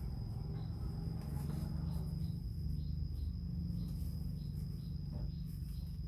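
Soft chirps repeating about twice a second over a steady high whine, like insects chirping, under a steady low hum.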